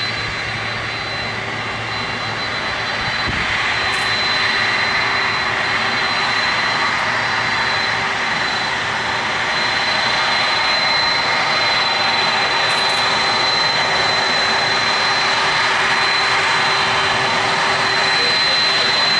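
Boeing 767-300ER's jet engines running: a steady rushing noise with a high, steady whine. It grows slightly louder over the first few seconds, then holds level.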